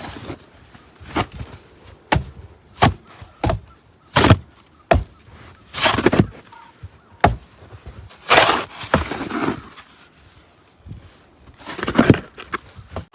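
A series of short, irregular scrapes and thumps, roughly one a second, with a few longer swishing scrapes in between.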